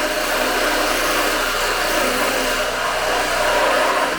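A small motor running with a loud, steady whir.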